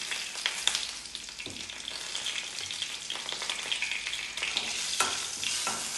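Hot sesame oil sizzling and crackling in a kadai during a tadka of mustard seeds, curry leaves and asafoetida, with a steady patter of small spatter pops. There is a sharper click about five seconds in.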